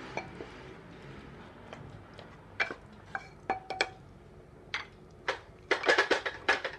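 Wooden spoon knocking and scraping against a metal cooking pot while stirring a thick mutton curry: scattered single knocks, then a quick run of knocks near the end.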